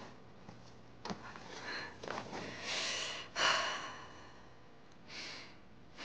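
A woman's sniffs and heavy, unsteady breaths, several in a row, the loudest about three and a half seconds in, as she holds back tears.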